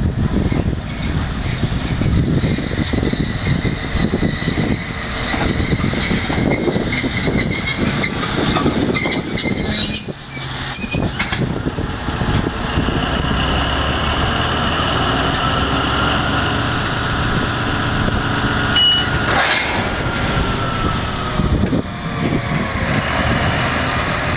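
2M62 diesel locomotive moving slowly with its diesel engine running, with a cluster of sharp metallic knocks about ten seconds in as its automatic coupler meets the wagon's coupler. Afterwards the engine runs on steadily.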